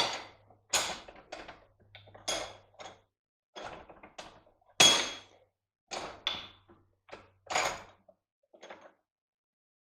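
Hammer blows on metal: about a dozen sharp, unevenly spaced strikes, some ringing briefly, as steel parts are knocked out of a cast aluminum electric-motor end bell.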